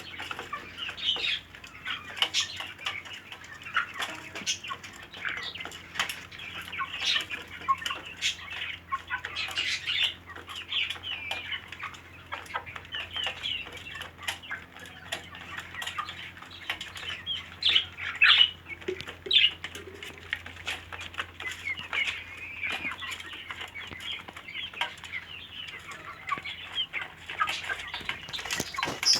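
A flock of birds chirping and calling continuously, many short overlapping calls, with wings fluttering now and then.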